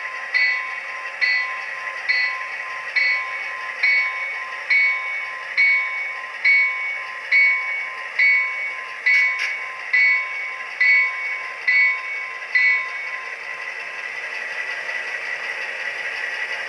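Digital locomotive bell from the SoundTraxx Tsunami sound decoder in an HO-scale Proto 2000 EMD SD9 model, ringing evenly a little faster than once a second, fifteen times, then stopping about thirteen seconds in over a steady background hiss.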